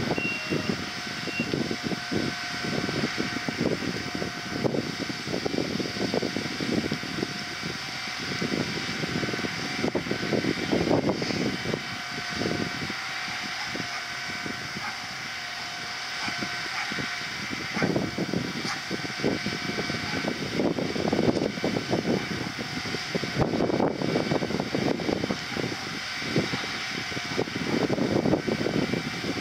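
Strong wind buffeting the microphone, over the steady hum of a diesel multiple unit idling while it stands at the platform.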